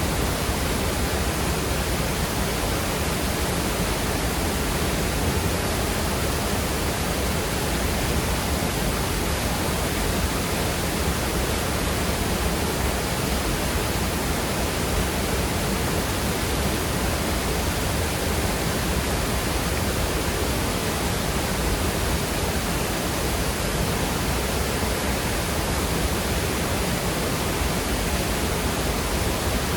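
Waterfall pouring into a fast-moving creek: a steady, unbroken rush of water over rocks.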